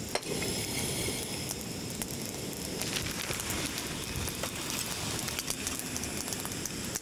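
Wood campfire crackling: a steady hiss scattered with many small sharp snaps, with one louder snap just as it begins.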